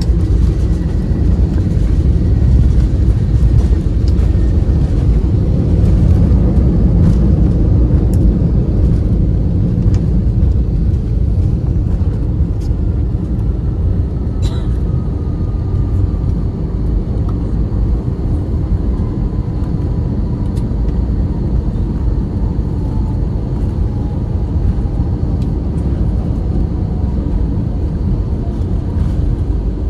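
Inside the cabin of a Peach Airbus A320-family airliner on its landing rollout: a loud low rumble of the engines and the wheels on the runway, strongest in the first several seconds and easing after, as the plane slows with its ground spoilers raised. In the second half a faint engine whine slides slowly down in pitch.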